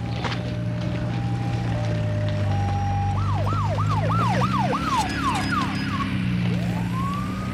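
Emergency vehicle sirens over a low engine hum. A two-tone hi-lo siren alternates at first, then changes to a fast yelp of about three sweeps a second, and a siren winds up near the end.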